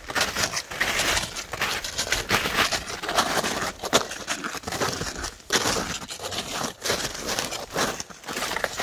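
Snowshoe footsteps crunching through crusty snow, a rapid run of irregular crunches, mixed with jacket fabric rustling close to the microphone.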